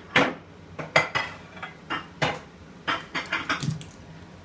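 A small dog's claws clicking and tapping on a wooden parquet floor: about a dozen sharp, irregular clicks as it gets down and walks off.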